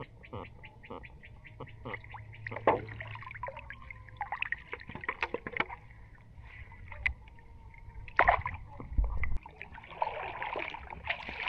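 Water dripping, trickling and splashing from a fine-mesh net shrimp trap as it is handled and lifted out of a pond by someone wading. There are many small drips and ticks, a louder splash about eight seconds in, and a rush of water near the end.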